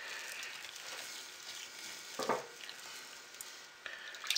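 Spatula stirring and folding thick hot-process soap in a crock pot, with one louder stroke a little past halfway and a few light clicks near the end.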